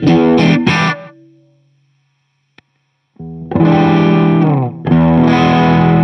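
Electric guitar played through a Phaser 45 phaser pedal: strummed chords that ring out and fade to silence about two seconds in, a faint click, then new chords from about three seconds in that sustain.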